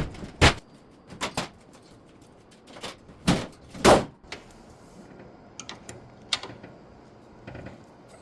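A series of clunks and knocks, the loudest about half a second in and twice more a little past three seconds in, followed by lighter clicks.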